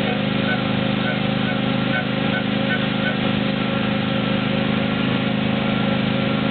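A ride vehicle's engine running steadily with an even hum. A faint short high note repeats a few times in the first three seconds.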